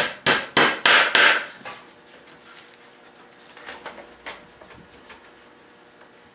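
Claw hammer tapping on a sheet of wood veneer freshly laid in glue: about five quick, sharp strikes in the first second and a half. After that come fainter knocks and clicks as bar clamps are tightened down on a plywood caul.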